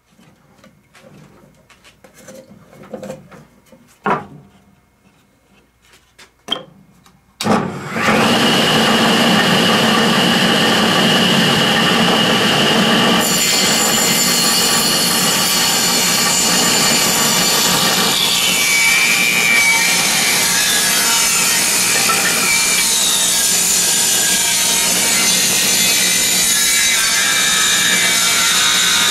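A few light knocks, then an old table saw starts up about a quarter of the way in and runs steadily. From a little before halfway it rips a thick cedar board lengthwise, the blade cutting through the wood to the end.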